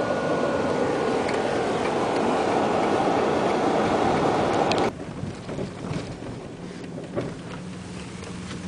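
Road and engine noise inside a moving car: a loud, steady rush that drops off abruptly about five seconds in to a quieter, steady engine drone with a few faint clicks.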